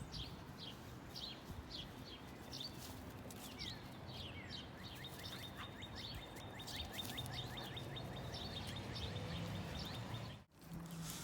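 Birds chirping: many short, quick chirps repeating over steady outdoor background noise. The sound drops out briefly near the end.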